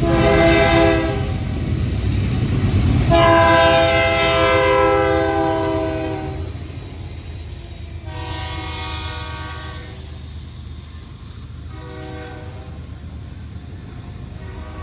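Air horn of a BNSF diesel freight locomotive leading a double-stack intermodal train, sounding a series of blasts as it passes: a short one, a long one a couple of seconds later, another as the locomotive goes by, a short one, and the start of another at the end. Under the horn runs the steady low rumble of the engines and the rolling stack cars.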